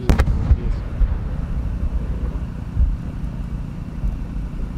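Aerial firework shell bursting: a sharp bang at the start and a second crack about half a second later, followed by a long low rumble. There is another dull thump near three seconds in.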